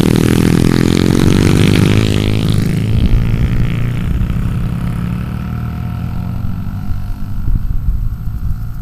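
Small mini dirt bike's engine passing close by, its pitch dropping as it moves off, then fading into the distance.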